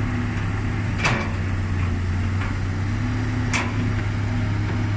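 Kobelco SK200 excavator's diesel engine running steadily, with two sharp clanks from the working machine about two and a half seconds apart.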